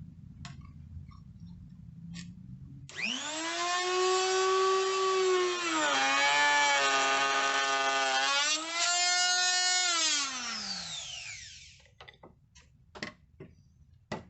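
Flush trim router starting up with a rising whine, its pitch sagging in the middle while the bit cuts a chamfer on a wooden chair leg and recovering, then switched off and winding down about twelve seconds in. Light clicks and knocks of handling come before and after.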